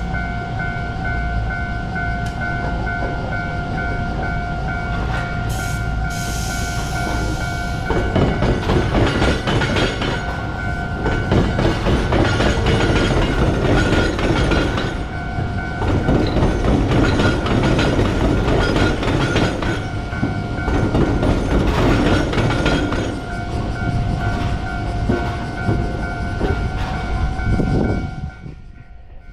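Japanese level-crossing warning bell ringing steadily. From about eight seconds in an Iyotetsu train passes over the crossing where the tram and railway tracks intersect, its wheels clattering over the rail gaps. The bell and the train noise both stop near the end.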